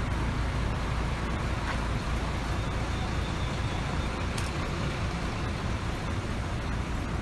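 Steady low rumble of vehicle engines and road traffic, with one brief click about four seconds in.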